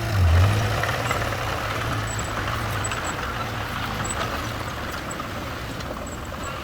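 Engine of heavy construction machinery running steadily with a low hum, swelling louder briefly just after the start, then easing off slightly.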